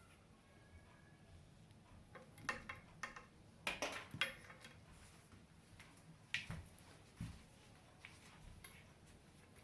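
Scattered short clicks and handling knocks of cable clamps being fitted to hold the lamp's wire along the rod, with a cluster of clicks about four seconds in.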